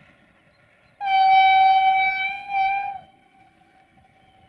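Horn of a Duewag Class 628 diesel railcar: one long blast starting suddenly about a second in, dipping briefly and ending with a short second toot about two seconds later.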